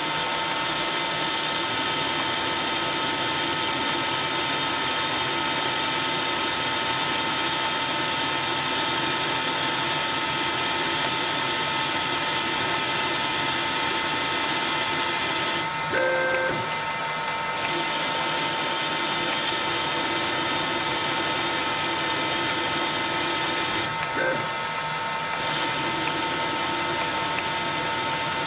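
CNC Myford ML7 lathe running steadily as it turns a small ball handle, with a steady whine and hiss. Its sound changes briefly about 16 seconds in and again about 24 seconds in.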